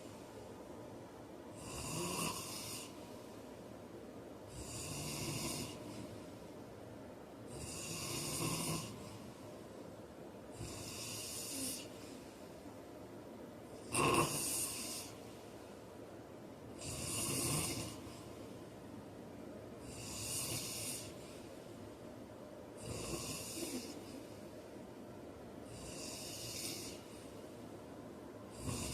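A heavy man snoring in his sleep, one snoring breath about every three seconds. The one about halfway through is the loudest and sharpest.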